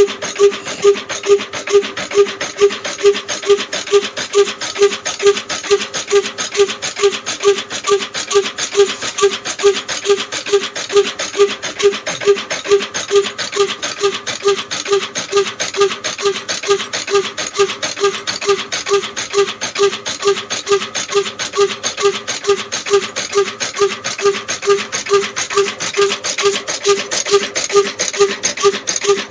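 Old Ruston stationary diesel engine running at a steady slow speed, its exhaust beating evenly about twice a second, over a constant rasping hiss from the grain mill it is driving.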